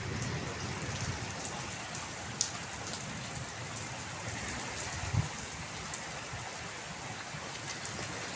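Heavy rain falling steadily on a wet concrete courtyard and into puddles, with a few sharper drop ticks here and there.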